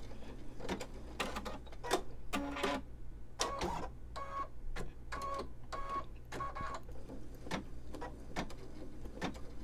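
Computerized embroidery machine stitching out a free-standing lace design, a steady low motor hum with irregular clicks from the needle and hoop movements.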